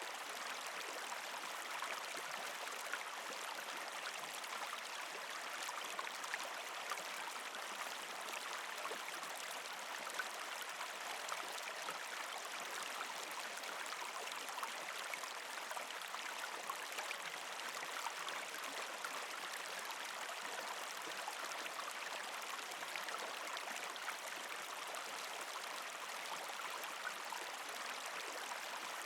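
Shallow creek water running steadily over rocks past ice, a continuous trickling and gurgling with many small splashes and no change throughout.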